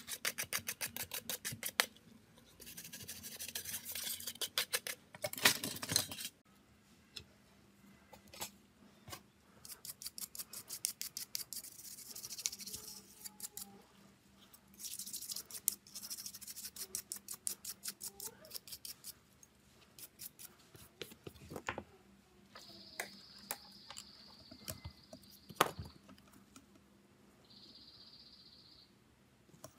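Rapid scraping, scrubbing and clicking of small hand tools on a smartphone, in runs of a few seconds with gaps of scattered clicks between them. Two short, steady high-pitched tones come in the last third, over a faint steady hum.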